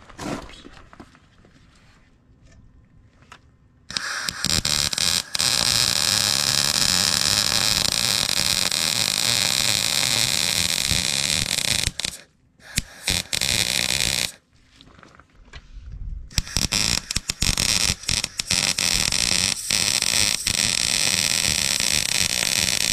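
Wire-feed welder arc crackling in long steady runs. It starts about four seconds in, runs for about eight seconds, comes in a few short bursts, stops briefly, then runs steadily again to the end.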